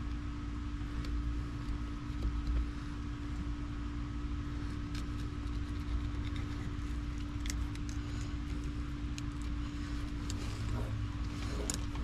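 A steady low machine hum with a constant pitch, over which a fillet knife slicing a catfish on a wet metal table makes a few faint clicks and scrapes.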